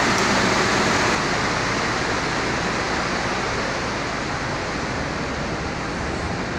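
Trenord Caravaggio (Hitachi Rock) double-deck electric train pulling out of the station after its doors close: a steady rushing noise that drops slightly about a second in.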